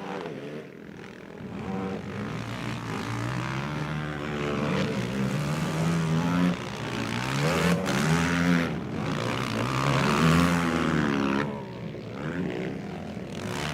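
Racing ATV (quad) engines on the motocross track, revving hard with the pitch climbing and dropping again and again as the riders accelerate and change gear, loudest near the middle.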